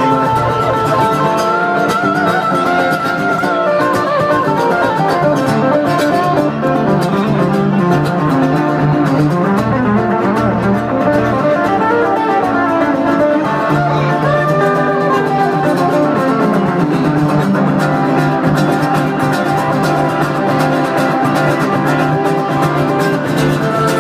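Two guitars, an archtop electric and an acoustic, playing live together: an instrumental passage with a melody line over strummed chords.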